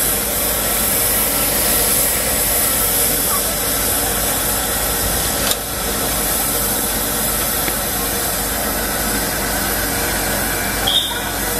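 Steam locomotive standing with a steady hiss of escaping steam, with one sharp click about halfway through.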